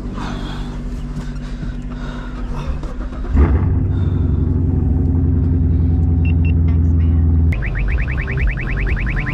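Chevrolet Camaro engine running, stepping up to a louder, steady drone about three and a half seconds in. About two seconds from the end the sound cuts over abruptly to a fast, high, repeating warble like a car alarm.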